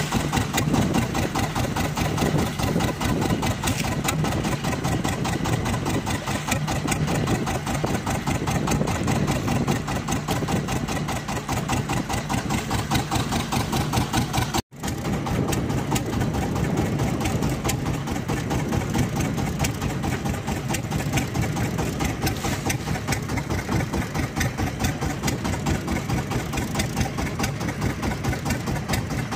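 A small fishing boat's engine running steadily at low speed, an even fast chugging, with a momentary gap about halfway through.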